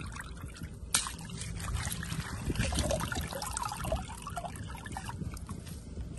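Shallow water trickling and splashing, with many small wet clicks and one sharp knock about a second in.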